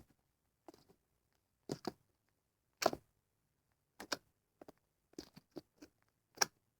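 Slime being squeezed and poked, giving about a dozen short, sharp crackles and pops at irregular intervals.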